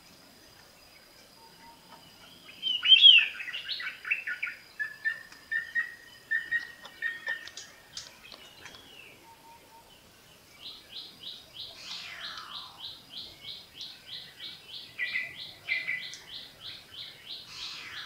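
Several forest birds calling. About three seconds in comes a loud burst of fast chattering notes, then a short run of lower whistled notes. From about halfway, a steady series of quick high notes, about three a second, carries on to the end.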